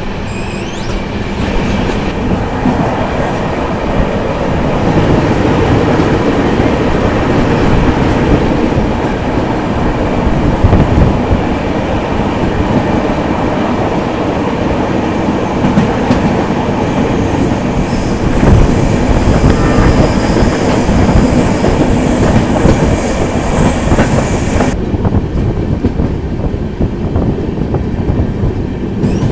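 Kanyakumari–Chennai Express passenger train running on the line, heard from on board: the steady rumble and rattle of the coach rolling over the rails. The high hiss thins out sharply about 25 seconds in.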